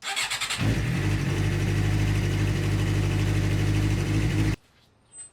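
Suzuki GSX-R inline-four engine cranked briefly on the starter. It catches within a second, runs steadily for about four seconds, then stops abruptly. This is the start-up after a fresh oil change.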